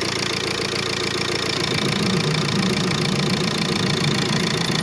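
Ford Focus diesel engine idling with a squeak that the mechanic puts down to the water pump, the suspected source of its coolant leak. A deeper hum grows louder about a second and a half in.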